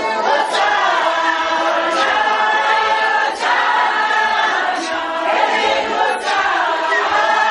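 A congregation singing together in chorus, many voices at once, without instruments.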